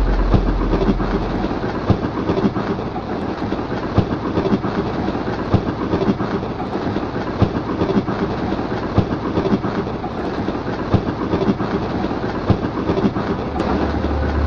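Passenger train running on rails: a steady rattle and rumble with the clickety-clack of wheels over rail joints, sharp clicks recurring about once a second.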